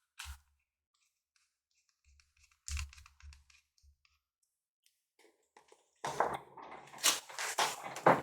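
Hands working on the open laptop's battery and internal parts: scattered small plastic clicks and a few light knocks, then about six seconds in a dense crackling rustle for the last two seconds.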